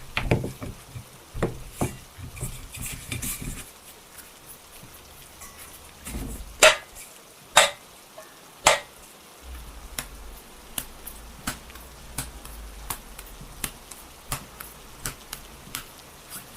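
Kitchen utensils and dishes clattering during cooking, with three sharp knocks a little under halfway through. Then a steady low hum sets in, with light ticks at an even pace of about three every two seconds.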